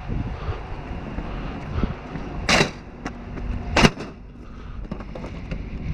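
Rummaging through trash in a dumpster: two short scraping, clattering sounds, about two and a half seconds in and again just under four seconds in, over a low wind rumble.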